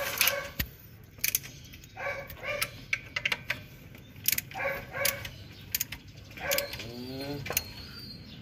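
Ratchet wrench and socket clicking in short runs as a bolt is tightened. A dog barks several times in the background.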